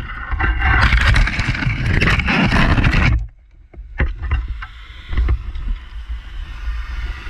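Loud rustling and scraping of dry grass and gear close to the microphone of a firefighter's helmet camera, over a low rumble of movement and wind. It cuts off abruptly about three seconds in, leaving scattered knocks and the low rumble.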